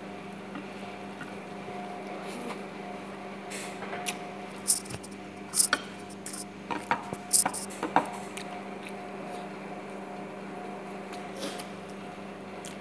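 Eating by hand from ceramic plates: fingers working through rice and chicken on the plates, with mouth smacks and a cluster of short sharp clicks and taps in the middle. A steady low hum runs underneath.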